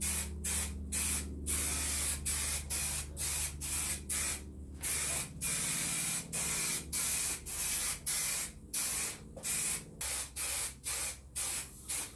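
Aerosol can of spray adhesive hissing in many short bursts, some lasting about a second, with brief gaps between them, as the carpet lining is glued to a plywood frame.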